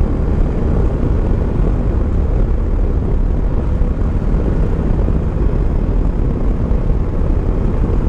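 Steady rush of riding wind over the camera mixed with the engine drone of a Yamaha Tracer 9 GT's three-cylinder engine, cruising at an even speed on the open road.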